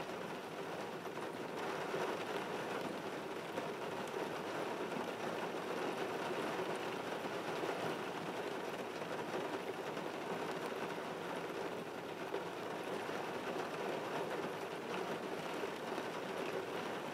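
Steady rain falling on a car's windshield and roof, heard from inside the car as an even patter.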